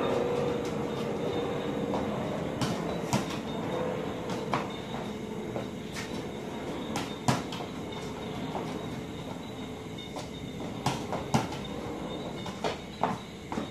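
Football being tapped and kicked by a shoe and bouncing on a concrete floor: about a dozen sharp, irregular knocks, some in quick pairs, over a steady background noise.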